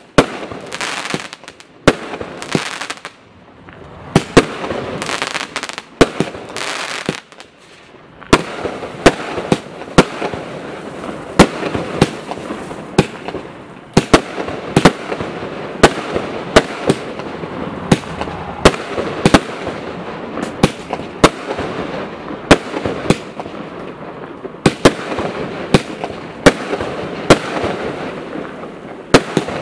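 Total FX Momentum 78-shot fireworks barrage cake firing shot after shot: sharp reports about once or twice a second, with a continuous hiss between them. There are brief lulls in the first several seconds before the shots come steadily.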